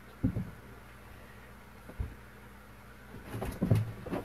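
A few dull thumps and knocks: one just after the start, one about two seconds in, and a denser cluster near the end.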